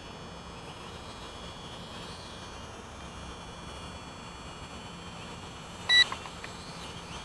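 Faint, thin whine of a distant Tarantula quadcopter's motors over a steady hiss. About six seconds in comes a single short electronic beep, the loudest sound, followed by two weaker blips.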